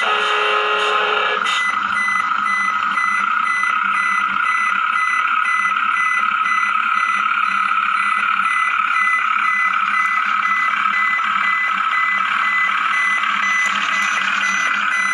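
Remote-control model truck reversing: a reversing beeper repeats about twice a second over the steady whine of its drive motor and gears.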